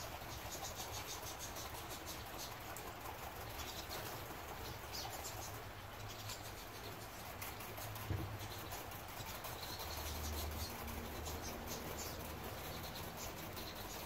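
Small songbirds chirping and twittering faintly, in many short high notes, with a single dull thump about eight seconds in.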